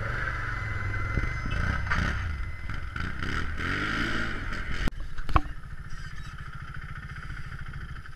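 A quad bike's engine revving with rising and falling pitch as it pulls away from the start. After a cut, another sport quad's engine idles with a steady fast low putter, and a sharp click sounds about five seconds in.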